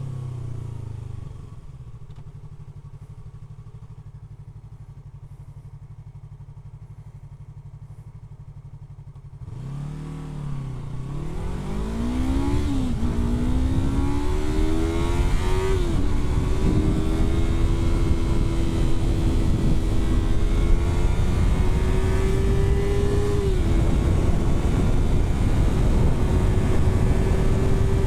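Yamaha R3's parallel-twin engine slowing to idle, then about ten seconds in pulling away and revving up through the gears, its note dropping at each of several upshifts. It then runs at a steady cruise with wind rush.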